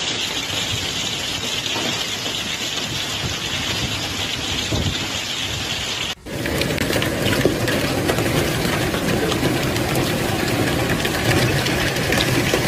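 A downpour of heavy rain and hail, a dense steady hiss of stones and drops striking surfaces. It drops out briefly about six seconds in, then resumes fuller and heavier, with a patter of individual hits.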